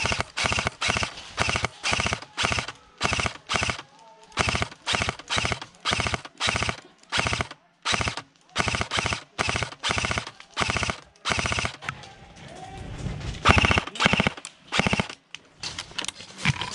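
M16-style airsoft rifle firing full-auto in short bursts of rapid shots, about two bursts a second, with a longer burst about thirteen seconds in.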